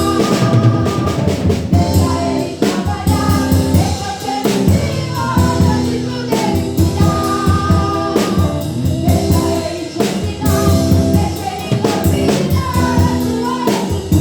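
Gospel song: sung vocals over a band with drum kit, with a steady beat.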